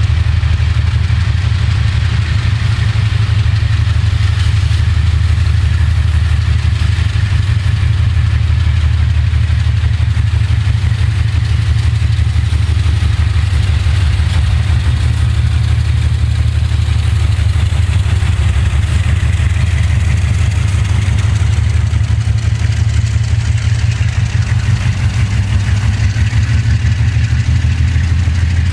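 GE C36-7 (ND5) diesel locomotive's engine running, a loud, steady deep rumble with a fast pulsing throb as it hauls a freight train.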